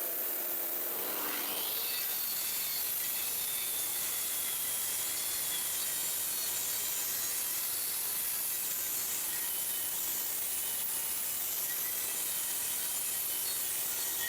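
Makita track saw running along its guide rail, making a long, steady cut through a sheet panel.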